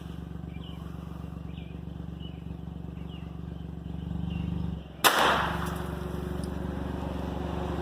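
A single gunshot about five seconds in, with a brief trailing echo: the snared coyote being dispatched. Under it runs the steady hum of an idling utility vehicle engine.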